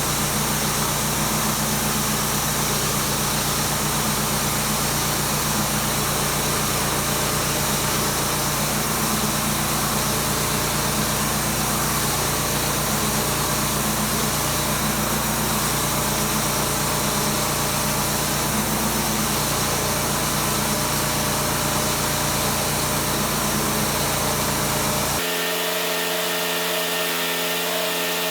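Sawmill's petrol engine running steadily at an even pitch. About 25 s in the sound changes abruptly to a different, higher machine sound with the low hum gone.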